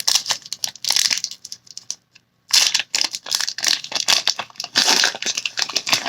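Foil Pokémon booster pack wrapper crinkling and tearing as it is ripped open by hand. It comes in two bouts of crackling with a brief pause between them.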